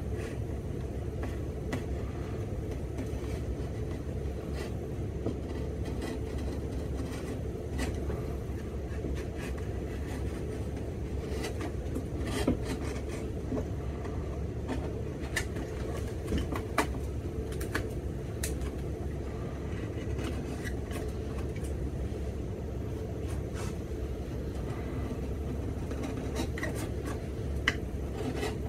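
Steady low hum of shop machinery, with faint, scattered scrapes and ticks of a knife scoring a leather shoe sole to hand-cut a half-sole splice line; a few sharper clicks around the middle and near the end.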